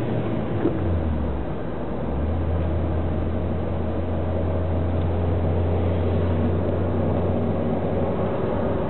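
Car driving at road speed, heard from inside the cabin: a steady low engine drone over road and tyre rumble. The drone dips briefly about a second in, then settles again.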